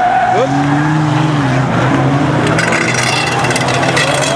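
Several banger racing cars' engines running and revving together as they race round the track, with a tyre squeal fading out at the start. About two and a half seconds in, a rough crackling noise joins the engines for a second or so.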